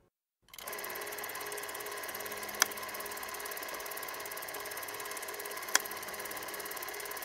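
A small machine starts up about half a second in and runs with a steady whir and a fine, rapid rattle. A sharp click comes about every three seconds, twice in all.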